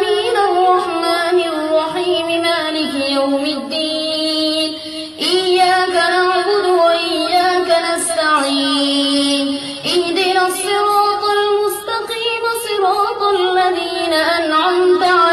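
A high, young voice chanting a melodic Arabic recitation solo, with long held notes ornamented by quick turns. Brief breath pauses come about five and ten seconds in.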